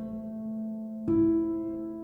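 Background music: soft piano notes sounding and ringing on, with a new note struck about a second in.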